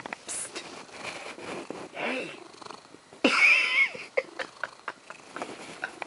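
A domestic cat under bedsheets gives one high, wavering meow about halfway through, amid the rustle of the sheets being moved.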